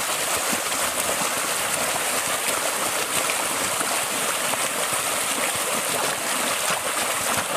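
Muddy water splashing and churning as several people lying in a shallow mud pit kick their feet, a steady rushing wash with many small splashes.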